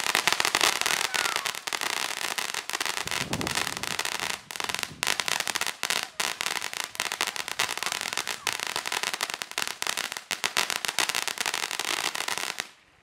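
Ground fountain fireworks burning and throwing out sparks, with a dense, continuous crackle of small pops that dies away sharply just before the end.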